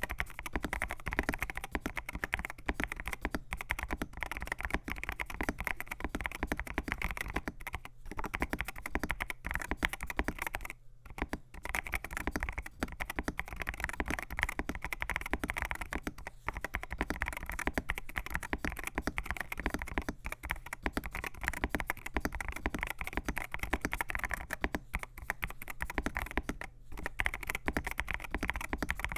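Typing on an AKKO MU02 mechanical keyboard with AKKO Rosewood switches, an FR4 plate, PBT keycaps and a walnut wooden case: a fast, steady stream of keystroke clacks, with brief pauses about 8 and 11 seconds in.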